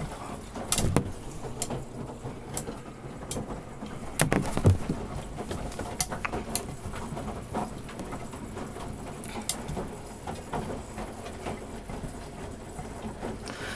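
Samsung Grande washing machine running its standard wash cycle: a low steady hum with irregular clicks and knocks from the drum and laundry, a cluster of louder knocks around four to five seconds in.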